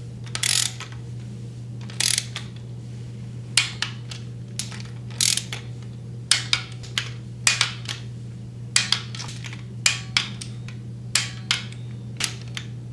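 Ratcheting torque wrench clicking in short strokes, in uneven bursts that come quicker in the second half, as the water pump bolts are run down to 9 ft-lb. A steady low hum lies underneath.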